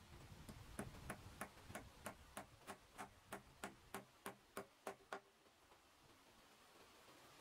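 A steady run of sharp, light taps, about three a second, that stops about five seconds in.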